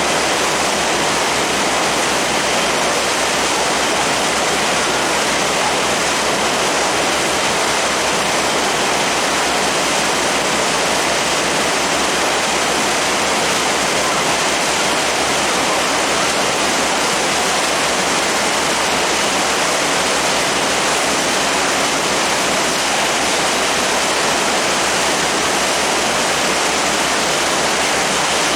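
Loud, steady rushing noise aboard a moving passenger boat: wind and water noise, unbroken throughout.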